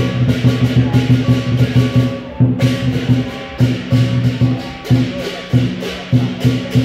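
Lion dance percussion playing a fast, driving beat: deep drum strokes, about four a second, with cymbal crashes on most of them. The crashes drop out briefly about two and a half seconds in.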